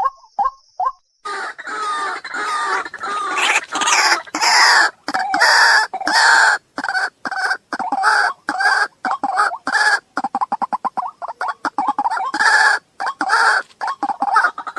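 Waterhen calling: a few short repeated notes, then from about a second in a loud, harsh series of croaking calls in rapid bursts, with a fast stuttering run of short notes a little past the middle.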